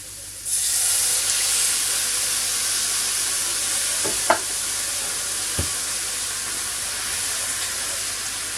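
Chopped tomatoes hitting a hot Dutch oven of frying chicken and vegetables, bursting into a loud, steady sizzle about half a second in that slowly eases. A couple of brief knocks, a spoon or the can against the pot, come midway.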